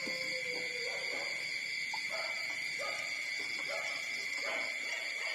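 Young puppies whimpering in short, soft rising-and-falling squeaks, about one every half second, over a steady high-pitched drone.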